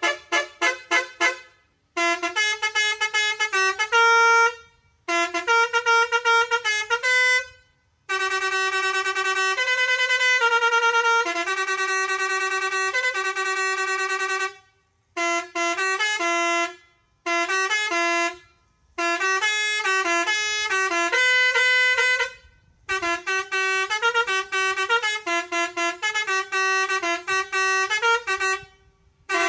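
Truck-mounted musical air horn playing a run of different tunes, one after another. Each tune lasts a few seconds and is made of clear pitched notes, with brief pauses between tunes as the melodies are switched.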